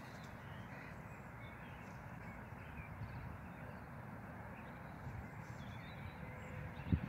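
Faint outdoor ambience: a low wind rumble on the microphone with a few scattered distant bird calls, and a single short thump near the end.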